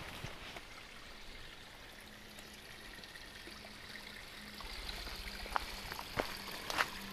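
Small woodland stream flowing steadily, with a few footsteps on the trail in the second half.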